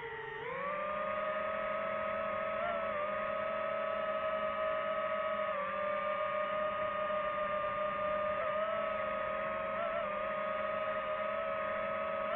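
Quadcopter drone's motors and propellers whining steadily as it hovers, with a short dip in pitch at the start and small wobbles as the throttle shifts.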